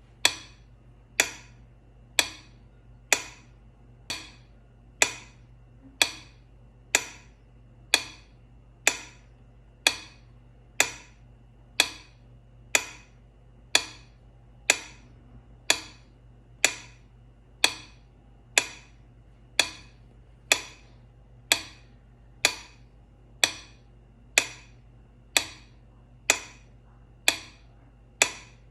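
Metronome ticking at 60 beats per minute: one short, sharp click each second, evenly spaced, one click about four seconds in softer than the others.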